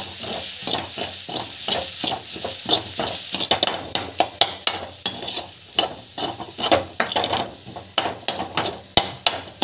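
A spatula scrapes and knocks against a frying pan in quick repeated strokes, several a second, as crumbled paneer and onions are stirred and sautéed in hot oil. A steady sizzle runs underneath.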